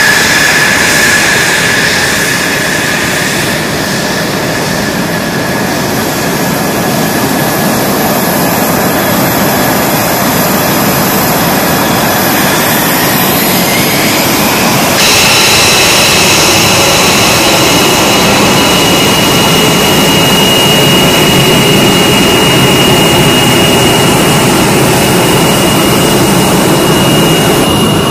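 Fighter jet engines running loudly with a steady high whine. About halfway through the whine rises, then the sound changes abruptly to a steadier, higher-pitched whine.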